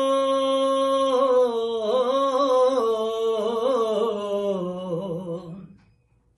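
A man singing a naat unaccompanied: he holds one long vowel for about a second, then winds it through a wavering, falling ornamented run that fades out near the end.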